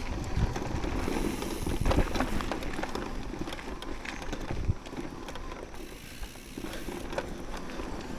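Mountain bike rolling over a dirt trail: a low tyre rumble with irregular knocks and rattles over bumps, easing off after about five seconds.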